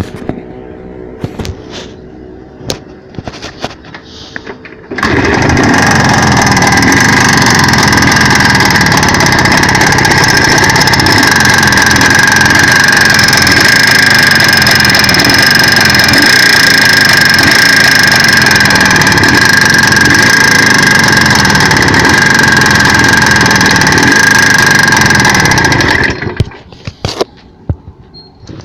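Jawa 634 two-stroke twin motorcycle engine, preceded by a few scattered clicks and knocks. The engine starts abruptly about five seconds in, runs loud and steady for about twenty seconds, then cuts off suddenly. The owner takes its knock for a worn piston (gudgeon) pin.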